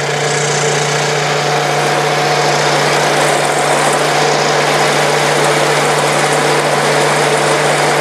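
Ford Model T four-cylinder flathead engine running steadily at wide-open throttle while loaded by a water-brake dynamometer at the start of a power run.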